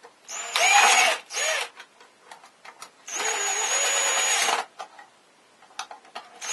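Cordless drill-driver driving the clamp screws of a metal Romex connector on an electrical box. It runs in two bursts: a short one about half a second in, and a longer one of about a second and a half from about three seconds in.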